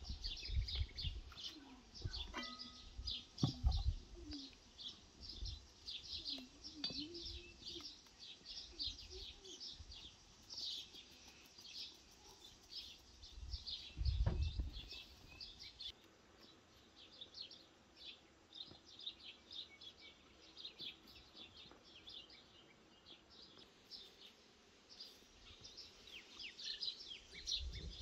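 Small birds chirping continuously in many quick high notes. A few dull low thumps come near the start and again about halfway through, and they are the loudest sounds.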